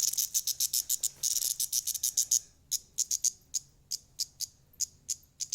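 Cicada buzzing in rapid high-pitched pulses, which then break into separate clicks about three a second that thin out near the end: the distress call of a cicada caught by a cat.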